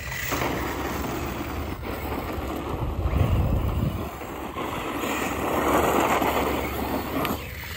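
Arrma Fireteam 6S RC truck driving over rough, cracked asphalt. Its brushless motor and drivetrain whir and its tyres scrub the pavement, building to the loudest pass about five to six seconds in and then cutting off near the end.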